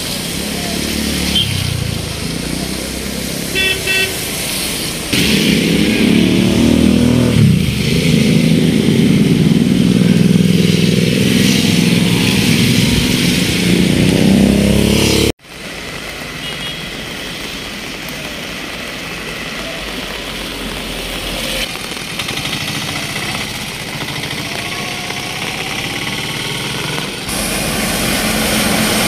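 Road traffic by a flooded street: vehicle engines running, with two short horn beeps about four seconds in. A louder engine runs for about ten seconds until the sound cuts off abruptly halfway through, after which a quieter steady rumble of traffic and flowing water carries on.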